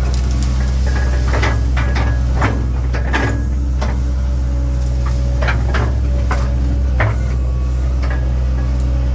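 1997 Link-Belt 2700 excavator's diesel engine running steadily under load, with repeated irregular clanks and knocks from the machine's tracks and working parts as it moves.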